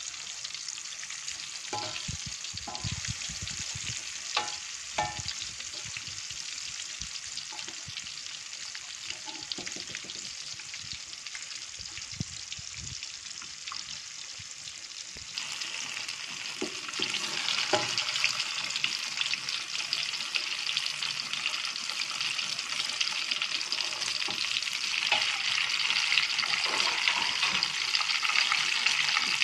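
Banana pieces deep-frying in hot oil in a steel wok: a steady sizzle, with a few knocks of a metal spatula against the pan in the first half. The sizzle grows louder a little past halfway.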